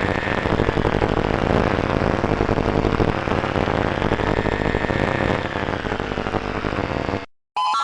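Loud, steady rumbling noise with a faint tone slowly rising and falling over it. It cuts off suddenly near the end.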